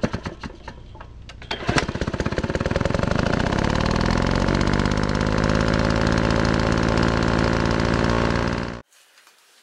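Engine-like rattling sound effect. It stutters at first, then from about two seconds in becomes a loud continuous buzz that climbs in pitch and holds, and it cuts off suddenly about a second before the end.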